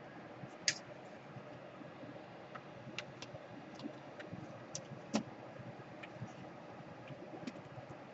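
Faint, scattered light clicks and taps, about a dozen spread irregularly, from hands handling small laptop parts and tape during a power jack repair; the sharpest tick is about five seconds in.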